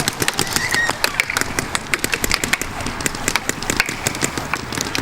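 Mechanical paintball markers firing during a game: a steady run of sharp pops, several a second at uneven spacing.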